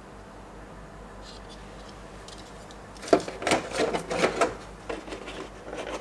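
Hands handling an action figure and its packaging as it is unboxed: a quiet stretch, then a run of clicks, scrapes and rustles starting about halfway in.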